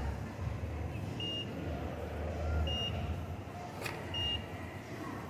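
Self-service fresh orange juice vending machine giving short, high beeps about every one and a half seconds, signalling that the cup of juice is ready to be taken out. A low steady hum runs underneath, with one click a little before the four-second mark.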